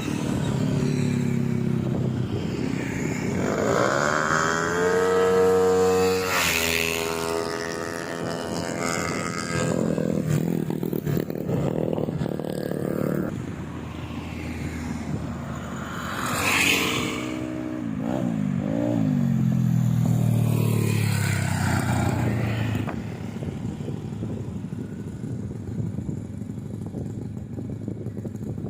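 Single-cylinder four-stroke engine of a Yamaha Mio scooter bored up to 200 cc, revved twice while being tuned. The pitch climbs steeply about four seconds in, holds high and falls back. A second, wavering blip and drop comes past the middle, and then the engine settles to a lower, steadier running.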